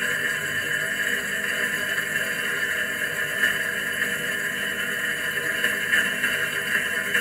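Dishwasher running: a steady, even wash noise of spraying water and machine hum, without pauses.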